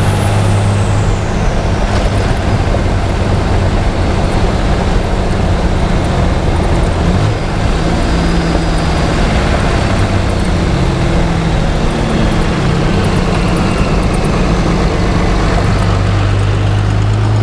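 Cummins turbo-diesel truck engine pulling, its turbocharger whistle high and falling in pitch over the first couple of seconds as the turbo spools down, with fainter whistles later. Heavy wind and road noise throughout, picked up at the front bush guard.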